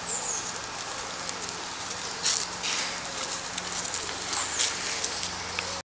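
Rustling and crackling of dry leaves and twigs on a woodland floor as a person moves about and picks things up, loudest about two seconds in, over a steady outdoor hiss, with a couple of short high falling chirps.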